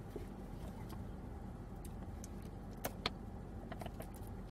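Steady low hum of a car idling, heard from inside the cabin, with a few faint clicks from a plastic drink bottle being handled about three seconds in.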